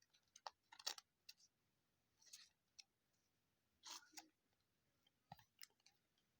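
Faint scattered clicks and brief rustles of trading cards being handled and slid against one another.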